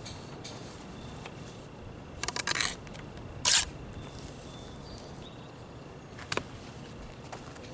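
Steel mason's trowel scraping and spreading mortar across the top of a brick chimney: a quick run of short scrapes about two seconds in, one louder scrape a second later, and a single sharp click near the end.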